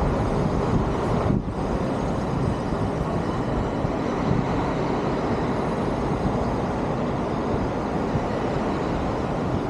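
Steady wind rumble on the microphone of a camera riding on a moving bicycle, dipping briefly about a second and a half in.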